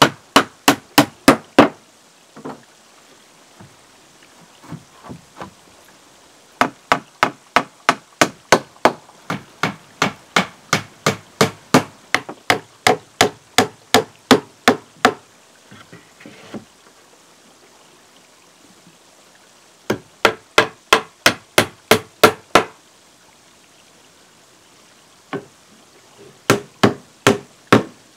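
A hammer striking timber planks in runs of steady blows, about three a second, with short pauses between runs. The longest run comes in the middle, and a single blow falls near the end.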